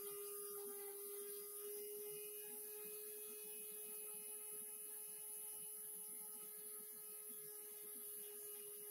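Countertop blender motor running steadily at high speed with a constant whine, blending avocado sauce.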